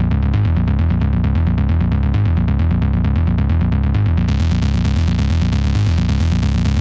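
Sylenth1 software synthesizer bass patch playing a bass line of fast, evenly repeated pulsing notes that step between a few low pitches. The sound turns brighter about four seconds in, as much more treble comes in.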